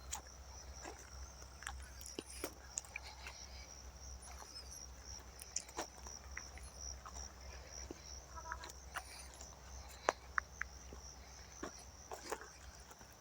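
Outdoor nature ambience: a steady high-pitched insect chorus with many short clicks and chirps scattered through it, over a low rumble.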